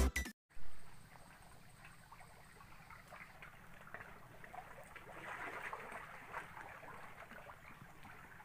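The tail of electronic music cuts off within the first half second, leaving faint lapping and trickling of shallow seawater with small splashes, a little stronger from about three and a half seconds in.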